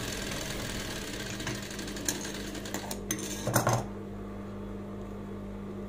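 Hands rustling and shifting white fabric at an industrial sewing machine's needle, with a few small clicks and a louder fabric rustle about three and a half seconds in, over a steady low hum.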